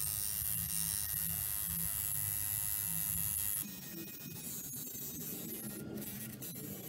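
Coil tattoo machine buzzing with a steady hum, stopping about three and a half seconds in. Faint background music follows.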